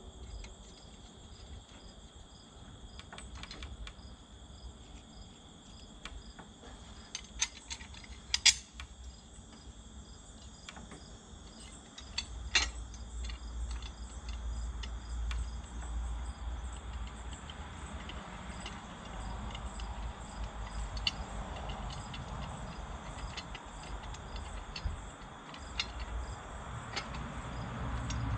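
Crickets chirping steadily, with a few sharp clicks and taps scattered over them, the loudest about eight and twelve seconds in. A low rumble comes in about twelve seconds in.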